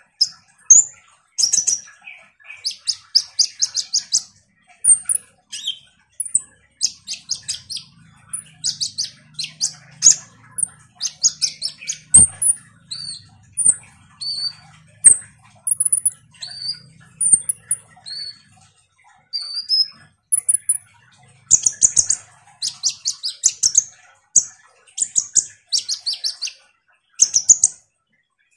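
Male kolibri ninja sunbird singing in full song: rapid bursts of high, buzzy ticking chatter, with a run of short, thin, high whistled notes in the middle before the chattering picks up again.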